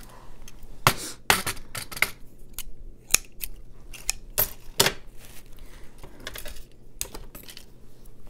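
Irregular sharp clicks and short rustles of jewelry-making supplies being handled: small metal charms and an artificial leaf vine moved about on a cutting mat.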